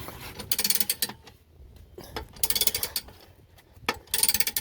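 Car jack being cranked up with a ratcheting handle: three bursts of rapid clicking, one stroke about every second and a half to two seconds, as the car is lifted.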